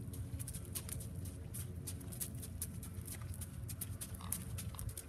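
A horse walking on sand footing under a rider: soft hoofbeats and many light, irregular clicks over a steady low rumble.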